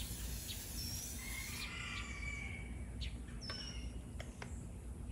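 Aerosol canola oil cooking spray hissing onto the grate of a homemade wood stove, cutting off suddenly after about a second and a half. Then birds chirping, with short whistled calls and sharp chips.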